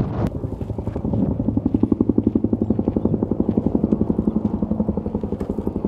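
Helicopter rotor beating in a rapid, even pulse that starts a moment in.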